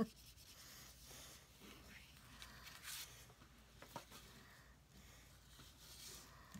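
Faint soft strokes of a brush-tipped pen on paper and light rustling of a paper scrap being handled, with a small tap about four seconds in.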